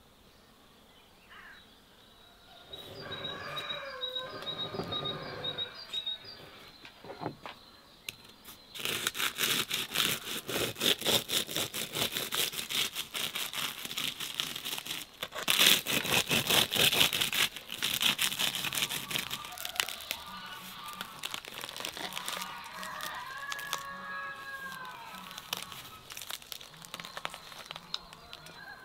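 Serrated knife sawing and breaking through the crisp, baked lavash crust of a shah pilaf: a dense run of crackling and crunching lasting about ten seconds. Birds call before and after it.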